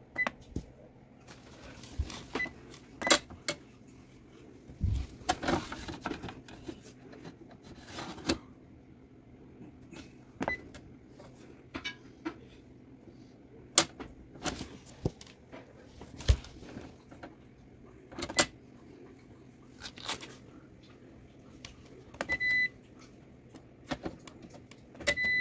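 Epson WorkForce WF-2850 inkjet printer during its initial ink setup, its mechanism making irregular clicks and clunks over a steady low hum. A few short high beeps come from the control panel, including one near the end.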